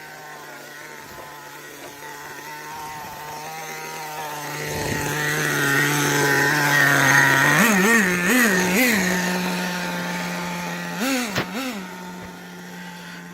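Nitro RC car's small glow engine idling steadily, growing louder toward the middle, with three quick throttle blips about eight seconds in and two more near eleven seconds.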